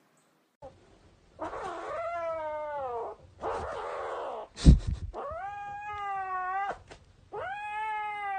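A cat caterwauling: three long, drawn-out yowls, the first falling in pitch at its end. A rough, noisy cry comes between the first two, and there is a sharp knock about midway.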